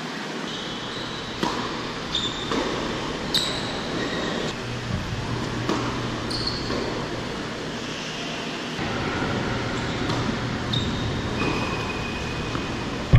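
Tennis being played on an indoor hard court: sharp knocks of racket strikes and ball bounces every second or so, mixed with short high squeaks of tennis shoes on the court surface.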